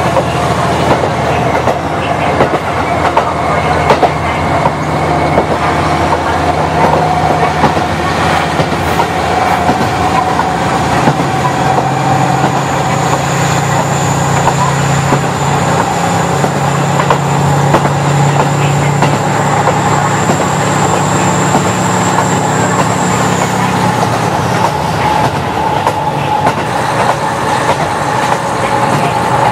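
KiHa 40 diesel railcar running at speed, heard from inside the car: a steady diesel engine drone with the clickety-clack of the wheels over the rail joints. A high whine comes in about halfway and fades out a little after two-thirds of the way through.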